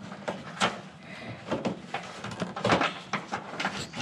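Irregular clicks, taps and rustling of a cable being worked by hand through an opening in a pickup's tailgate while wiring a tailgate lock.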